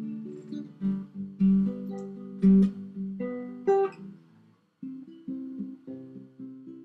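Acoustic guitar music: plucked notes and chords ringing on, growing softer after about four and a half seconds.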